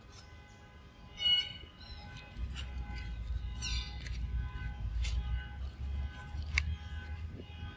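Dry fallen leaves crackling and rustling as a young macaque steps over them and handles a mango. Over a low rumble there are a few sharp crackles and two short high squeaks, one about a second in and a falling one near the middle.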